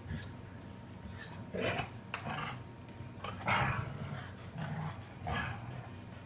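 Dogs play-fighting, giving about five short growls and yips from a second and a half in.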